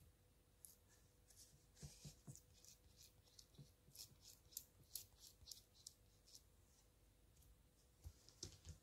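Faint, irregular sticky clicks and crackles of slime being pressed by fingers into a silicone cactus mould and pulled from it.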